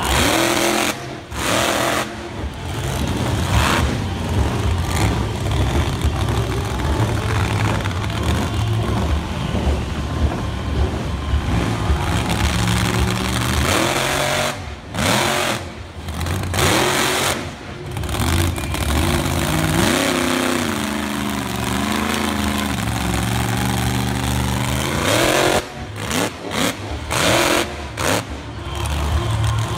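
Monster truck engine revving hard and dropping back, its pitch rising and falling over and over as the truck drives and lifts its front wheels.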